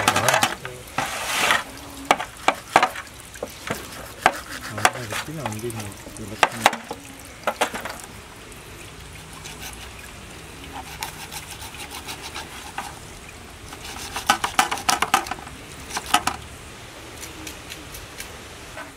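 A knife scraping the scales off a large fish, in runs of quick rasping strokes with short pauses between.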